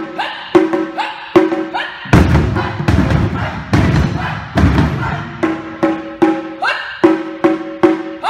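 Taiko ensemble drumming: barrel-shaped taiko drums and upturned plastic bins used as practice drums, struck together with wooden sticks in a repeated rhythm. It mixes deep hits with sharper strikes that ring briefly, about two strikes a second.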